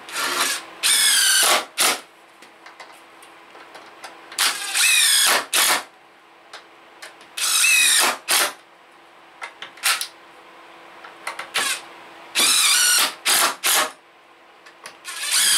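Cordless DeWalt impact driver driving deck screws through wooden seat slats, about five screws in runs of a second or so each. The motor pitch climbs during each run, and a couple of short trigger blips follow as each screw seats home.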